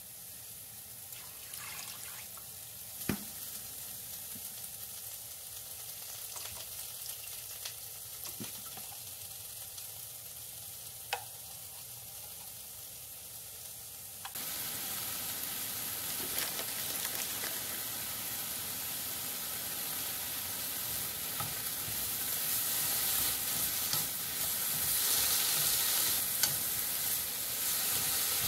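Pork belly pieces cooking in a pot with a soft, even sizzle, broken by a couple of sharp clicks. About halfway through it changes to louder sizzling of carrot and lotus root strips being stir-fried with chopsticks in a frying pan.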